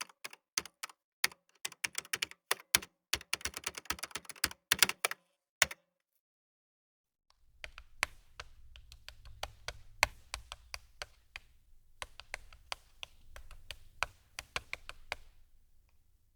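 Typing on a computer keyboard: rapid key clicks for about six seconds, then a pause of a second and a half, then a second run of typing with a low hum underneath.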